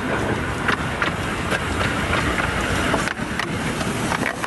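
Miniature railway steam train running: a steady rushing rumble with a few irregular sharp clicks.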